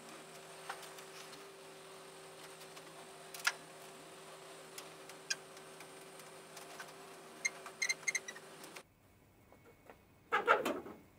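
Scattered light metallic clicks and clinks of nuts, washers and hand tools as bolts are fitted through a truck's rear fender, over a steady faint hum, with a quick run of small clinks about eight seconds in. Near the end comes a louder brief clatter.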